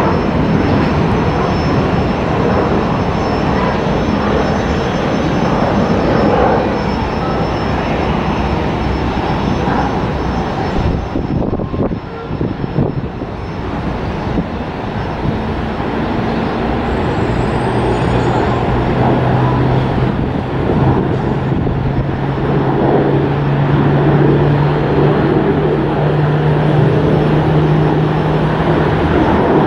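Jet airliner engines running loud and steady, with a brief drop in level about a third of the way through. In the second half a low hum comes in and rises slightly in pitch.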